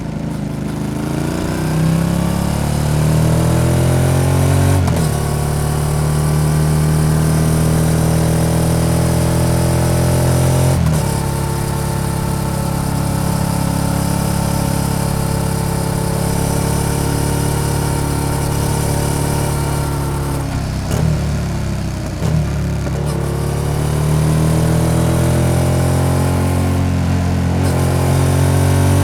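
Yamaha XSR700's parallel-twin engine through an SC-Project exhaust, accelerating up through the gears: the pitch rises and drops at shifts about five and eleven seconds in, then holds steady at cruise. It falls off around twenty seconds in, then climbs again.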